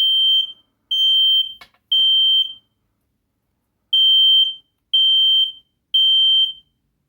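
Smoke alarm sounding its test: loud, high-pitched beeps in two groups of three, with a short pause between the groups. This is the three-beep temporal pattern of a smoke alarm's evacuation signal, set off by pressing the test button. A brief click falls between the second and third beeps.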